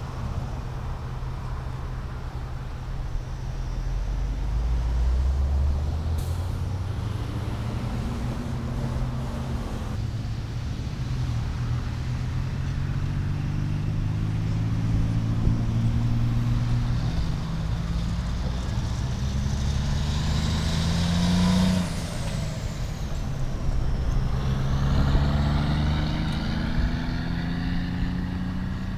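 Diesel semi truck pulling a trailer, working up through its gears: the engine pitch climbs and drops several times. Wind runs on the microphone underneath.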